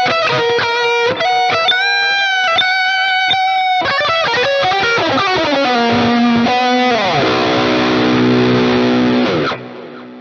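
Ibanez Axion Label seven-string electric guitar with Fluence Modern pickups playing an overdriven lead line of single notes with string bends. Near the end it slides down into a ringing chord that is muted suddenly, leaving a short delay and reverb tail.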